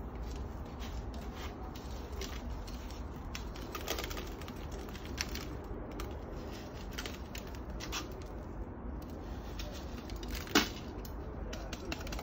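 Scattered light clicks and rustles of a small potted plant and its pot being handled during repotting, with one sharp, louder click about ten and a half seconds in.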